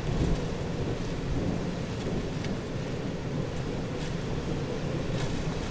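A thunderstorm's steady low rumble, with a faint hiss above it.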